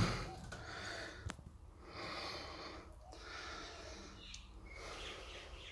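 A person breathing close to the microphone, soft breaths about a second apart, with a faint click about a second in.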